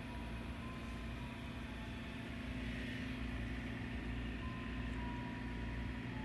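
Ice cream truck running with its engine idling: a steady low rumble and hum.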